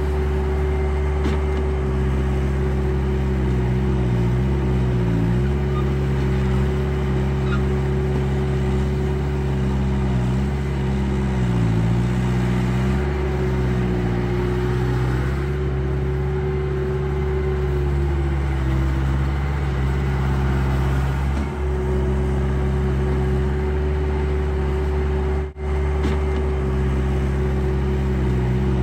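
Engine sound of an RC tracked skid steer loader, a steady diesel-like hum that dips in pitch and comes back up several times as the machine works. The sound cuts out for an instant near the end.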